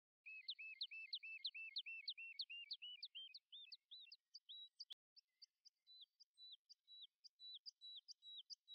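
A songbird chirping in a fast, regular series of high notes, about three a second, each a quick downward sweep paired with a lower note. About halfway it slows into a different repeated note with a downward flick, and a single sharp click sounds near the middle.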